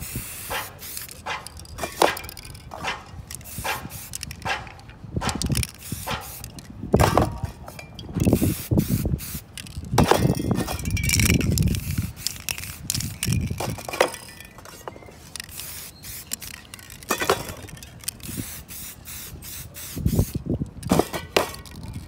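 Aerosol spray paint cans hissing in irregular short bursts, broken up by many sharp clicks and knocks.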